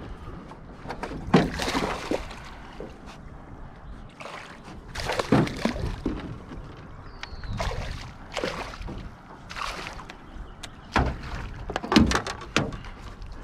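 A hooked fish splashing and thrashing at the water's surface beside a small boat, in about seven short bursts, the last of them as it is scooped into a landing net near the end. A steady low rumble runs underneath.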